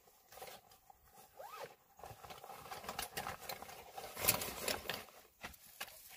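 Fabric carry bag being handled and unzipped: nylon rustling and a zipper, with scattered small clicks, loudest about four seconds in.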